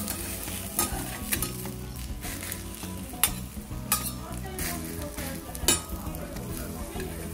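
Two metal spatulas chopping and turning a shredded-cabbage okonomiyaki mix on a hot teppan griddle. The mix sizzles throughout, and the blades give sharp clacks as they strike the iron plate, about five times, the loudest just after three seconds and near the end.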